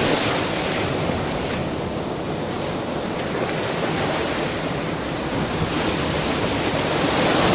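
Ocean surf: waves breaking and washing up a shore in a steady rush. The wash eases off a second or two in and builds again with the next wave near the end.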